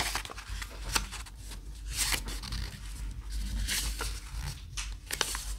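A sheet of paper being folded by hand on a tabletop: uneven rustling and scraping with several short crisp crackles as the corners are folded to the centre line and the creases pressed flat.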